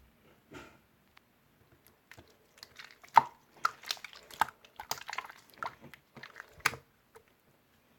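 Marbled slime being squeezed and poked by hand: a run of sticky clicks and pops, densest from about two to seven seconds in.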